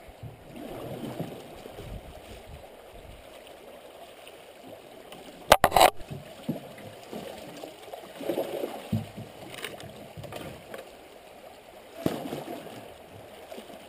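Shallow river water gurgling around a canoe while it is paddled, with swells of paddle and water noise. A sharp knock about five and a half seconds in, and a few lighter clicks later on.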